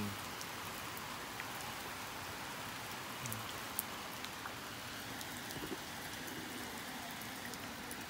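Steady rain falling, with scattered sharp raindrop ticks.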